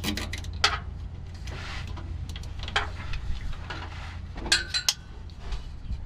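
Scattered small clicks, knocks and a brief rasp from hands handling an air-horn solenoid, air lines and wiring under a pickup, over a steady low hum.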